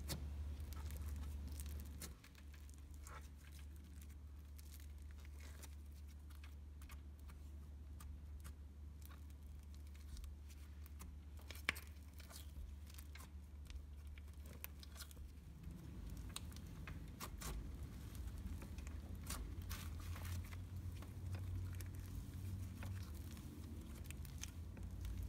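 Hands playing with a creamy mixed butter and cloud slime, faint scattered crackles and small clicks as it is stretched and pressed.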